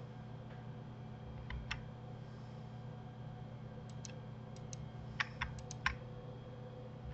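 Scattered clicks of a computer keyboard and mouse: a pair about a second and a half in, then a quicker run of about nine between four and six seconds in, over a steady low hum.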